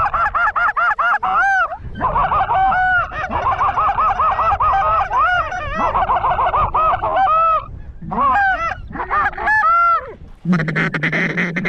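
Goose calls blown in rapid runs of short honks and clucks, at times two callers overlapping, calling to flocks of Canada geese. Near the end comes a lower, buzzier note lasting about two seconds.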